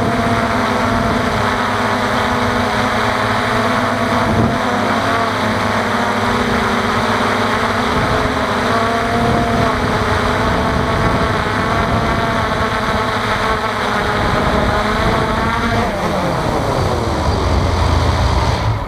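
FPV racing quadcopter's brushless motors and propellers whining, heard close from the camera mounted on the drone, the pitch shifting a little with throttle. Near the end the whine falls in pitch as the throttle comes off and the drone comes down to the ground.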